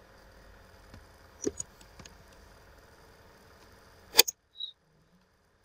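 Scattered sharp clicks of a computer keyboard and mouse over a faint steady hum, the loudest a little after four seconds in. Right after it the background hum cuts out.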